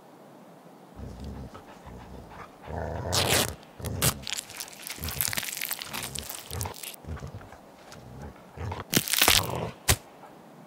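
A dog rustling in dry grass and chewing, with irregular crunching that starts about a second in and a few sharp clicks near the end.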